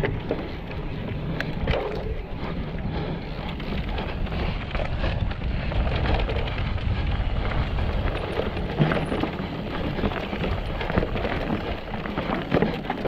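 Mountain bike ridden down a rough, rocky trail: tyres rolling over rock, and the bike rattling with many scattered knocks, under wind buffeting the microphone.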